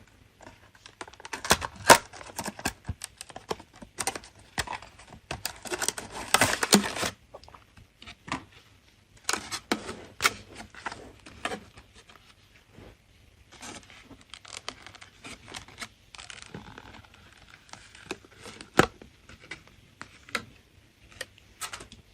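Hands handling a new SSD and its packaging: a string of clicks and crinkling, with a longer tearing sound about six seconds in.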